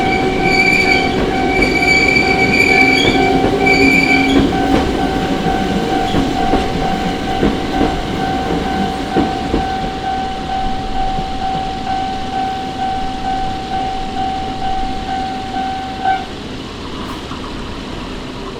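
A Hakone Tozan Railway train passes over a level crossing. Its wheels squeal in broken bursts for the first four seconds and knock over the rail joints, and its running noise fades. A level-crossing warning bell rings steadily throughout and stops abruptly about sixteen seconds in.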